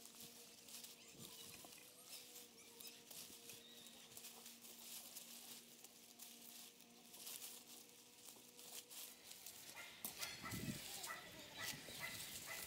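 Faint rustling and crackling of strawberry leaves and stalks as gloved hands work through the plants, stripping and trimming old foliage, over a faint steady hum. About ten seconds in, the crackling becomes denser.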